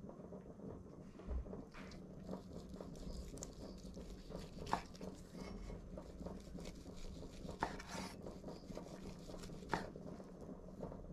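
A large kitchen knife slicing through boiled beef shank on a wooden cutting board, with soft cutting and handling noise and a few sharp knocks of the blade striking the board. Near the end, gloved hands pull the cooked slices apart.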